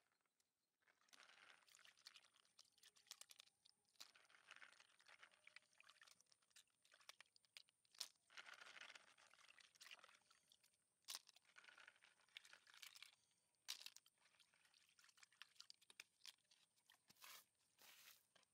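Quiet, repeated rustling and crunching of material being tipped into a plastic bucket and worked by hand, with sharp clicks now and then.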